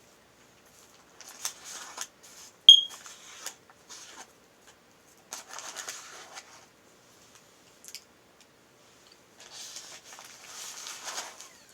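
Sandwich wrapper paper rustling and crinkling in several short bursts as the sandwich is handled and more mayo is added to it. About three seconds in there is one brief, sharp high squeak.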